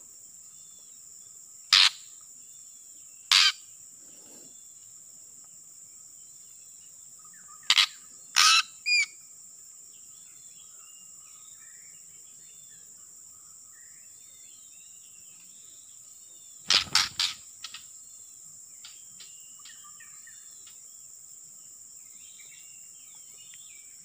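Steady high drone of insects with faint, repeated bird chirps in the background. A handful of loud, short, harsh sounds break in twice near the start, three times around the middle, and in a quick cluster a few seconds later.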